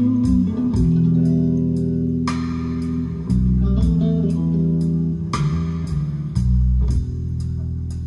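Recorded music with guitar and a deep, sustained bass line, played through hi-fi loudspeakers driven by 845 single-ended triode tube amplifiers. Sharp hits land about every three seconds.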